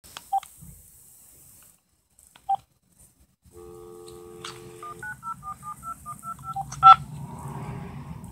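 VTech cordless phone handset: two short key beeps, then a steady dial tone for about a second and a half, then a fast run of about ten touch-tone dialing beeps as a phone number is dialed, the last one the loudest. A low hum of the open line follows.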